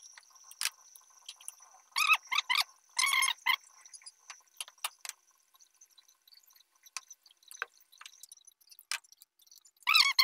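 Runs of short, pitched chirps, each rising and falling, about two and three seconds in and again near the end, between scattered light clicks and taps from hand work on the wires, over a faint steady high whine.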